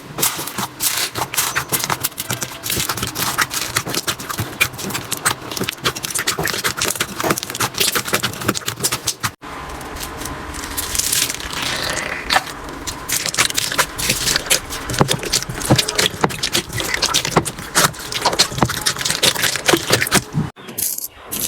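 Slime being squeezed and pressed by hand, giving a dense run of small crackling clicks and pops. The sound breaks off suddenly for a moment about nine seconds in, then carries on, and dips briefly near the end.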